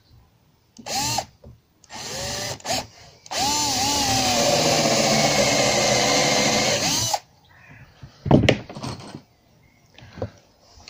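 Cordless drill running with a countersink bit cutting into softwood timber: two short bursts, then a run of about four seconds with the motor pitch rising and wavering under load. A sharp knock follows about eight seconds in.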